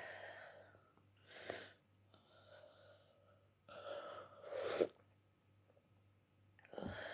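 A person with the flu making short, breathy throat bursts, a throaty cough and sneezes; the loudest comes sharply after a short build-up about five seconds in.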